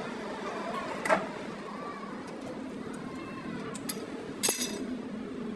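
A few sharp metallic clinks of metal parts or tools being handled: one about a second in, and two more close together near four and a half seconds, the last ringing briefly. A steady background hum runs under them.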